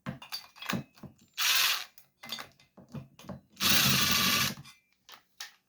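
A ratcheting tool runs in two short bursts, about half a second and then a second long, undoing the fastener that holds the cylinder on a chainsaw. Small clicks and knocks of tool and metal parts come between the bursts.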